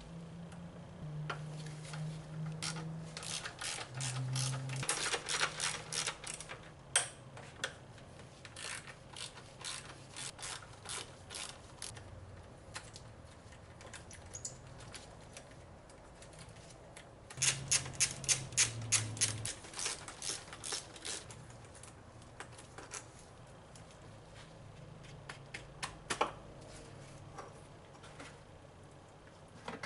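Hand socket ratchet clicking in several runs of rapid clicks, with pauses between, as bolts are turned.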